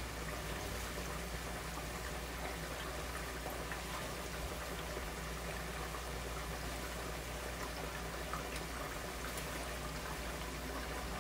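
Breaded chicken slices deep-frying in a large pot of hot oil: steady sizzling and bubbling, dotted with many small crackles, over a low steady hum.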